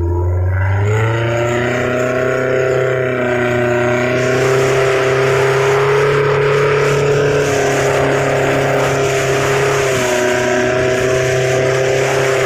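Long-tail boat engine revving up in the first second, then running steadily at speed; its pitch eases slightly about ten seconds in and comes back up. A steady hiss joins about four seconds in.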